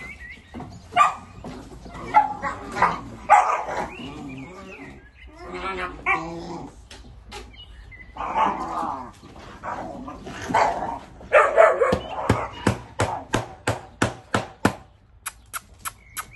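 Dogs barking and whimpering in irregular bursts, ending in a fast run of short, sharp sounds about three a second.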